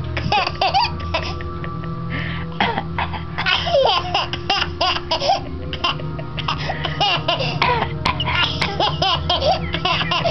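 Baby laughing in several bouts of high, hiccupping giggles, set off by an adult coughing between the bouts.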